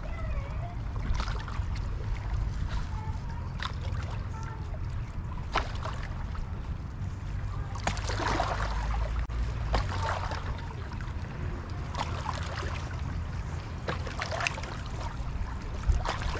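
Wind rumbling on the microphone, with small waves lapping and splashing unevenly against a rocky shoreline every second or two.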